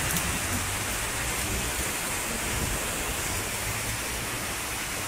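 Heavy rain falling steadily on a street and parked cars: an even, unbroken hiss.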